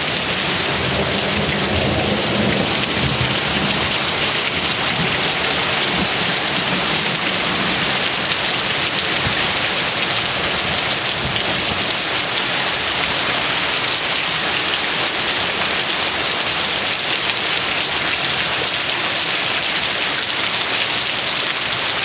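Heavy thunderstorm rain pouring down as a loud, steady, even hiss, with a low rumble of thunder in the first few seconds.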